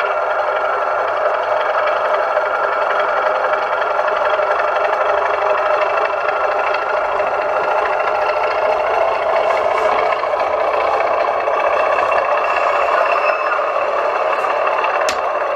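DCC sound decoder in a model diesel locomotive playing a diesel engine running sound through its small onboard speaker, steady as the train draws away.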